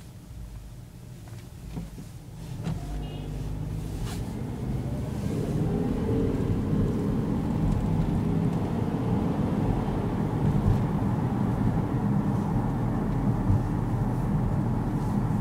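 Honda CR-V pulling away from a traffic light, heard from inside the cabin: the engine and road noise rise over the first few seconds as it accelerates, then hold steady as it cruises.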